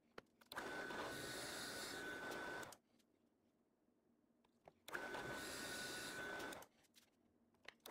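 Drill press boring into a cherry blank with a Forstner bit: two bursts of about two seconds each, a steady whine over the cutting noise, with quiet between them.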